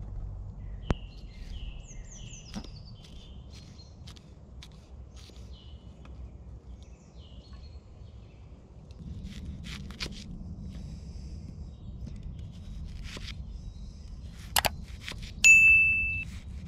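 A kitchen knife cutting vegetables on a wooden tree-stump block, with a few sharp knocks of the blade on the wood, while small birds chirp. Near the end a bright electronic ding rings and fades, the loudest sound.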